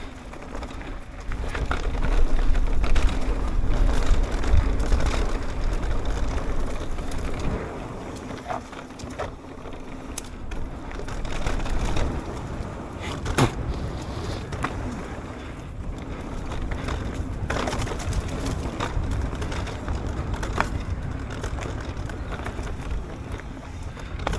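Propain Ekano 2 AL electric mountain bike ridden down a rough trail: tyres rolling over dirt and stones, with repeated knocks and rattles as it hits bumps. Wind on the microphone adds a low rumble. The rattle is one the rider traces to somewhere in the front end.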